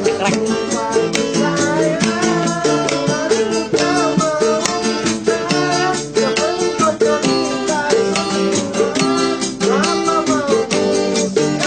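Acoustic guitars strummed in a fast, even dangdut rhythm, with a man singing over them.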